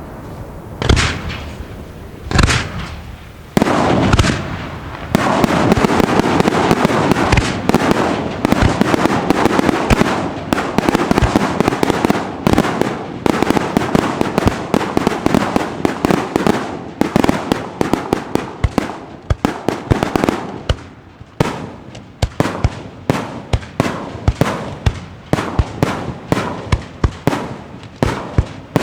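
Pirotecnica Pellicani fireworks display going off: a few single bangs at first, then from about five seconds in a dense barrage of rapid bangs and crackling that thins after about twenty seconds into quick separate reports, several a second.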